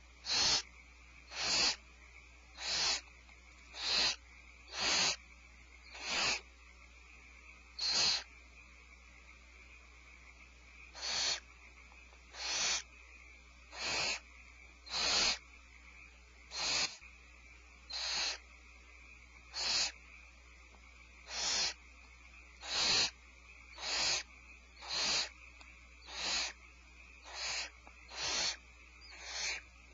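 Barn owl giving repeated harsh, hissing snore calls, each about half a second long and roughly once a second, with a pause of a few seconds partway through. These are typical of food-begging.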